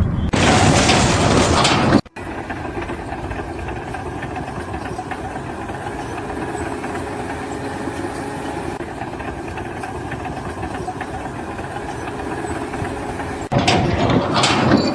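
An engine running steadily for most of the stretch, after a short loud rushing noise near the start; another loud noisy sound comes in near the end.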